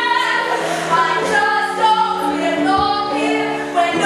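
A group of voices singing together in held, sustained notes, several pitches at once.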